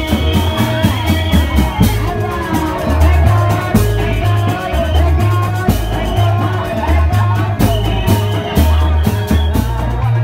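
Loud Reog Indramayu ensemble music: a deep bass line stepping from note to note, steady drum strokes and a melody, with some singing.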